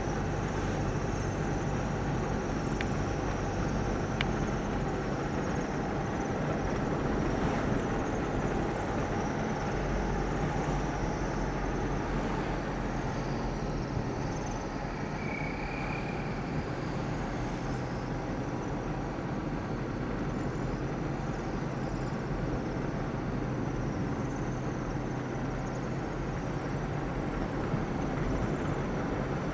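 A steady, continuous low mechanical rumble with a low hum, unchanging throughout, with faint steady high-pitched shrilling above it.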